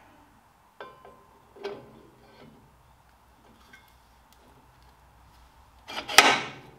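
Metal clinks and knocks as a Ferguson TED20 front axle beam is worked onto its oiled pivot pin and bush, with a louder clunk about six seconds in.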